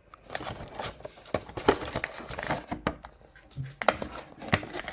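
Plastic action-figure packaging and parts being handled: crinkling with irregular small clicks and taps.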